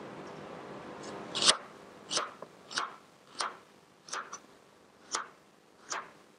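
Chef's knife slicing through an onion onto a plastic cutting board: a steady run of crisp cuts, about one every two-thirds of a second, beginning about one and a half seconds in.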